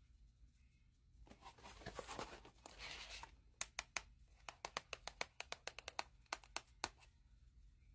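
Long acrylic fingernails scratching and rubbing on a cardboard toy box for a couple of seconds. They then tap on it quickly: about twenty sharp, uneven taps in just over three seconds.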